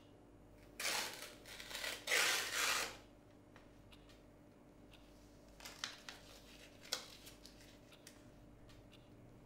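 Two harsh rustling, rasping sounds, each about a second long, from a small object worked in someone's hands, followed by a few light clicks.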